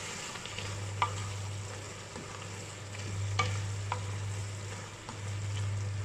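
Wooden spatula stirring beef tripe curry with green peppers in a frying pan, the sauce sizzling steadily, with a few sharp knocks of the spatula against the pan about one and three and a half seconds in. A steady low hum runs underneath.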